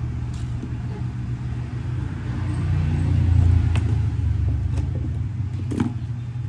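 A steady low rumble, like a motor running, that swells about three seconds in, with a couple of sharp clicks.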